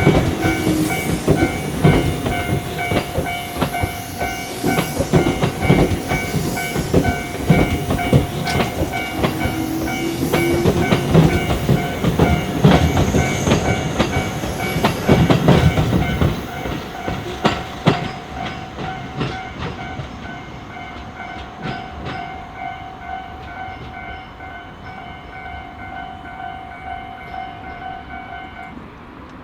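Japanese level-crossing warning bell ringing with a steady clang while a Tobu Nikko Line train passes, its wheels clattering over the rail joints. The clatter fades after about two thirds of the way through, and the bell stops just before the end.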